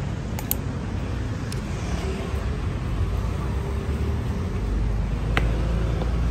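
Outdoor street ambience: a steady low traffic rumble that grows heavier in the last couple of seconds, with a few faint sharp clicks.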